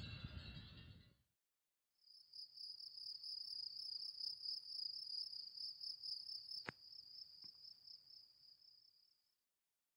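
Faint, steady, high-pitched chirring of a cricket, starting about two seconds in and stopping shortly before the end, with one sharp click partway through. Before it, a brief patch of chiming and wind noise cuts off about a second in.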